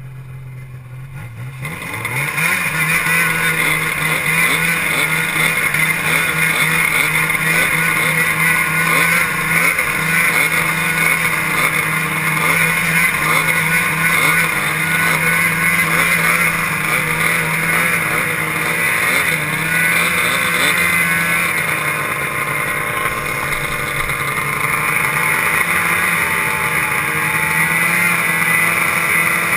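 Arctic Cat snowmobile engine coming up to a steady run about two seconds in and holding a constant speed as the sled moves over dirt, easing off a little about two-thirds of the way through and picking up again near the end.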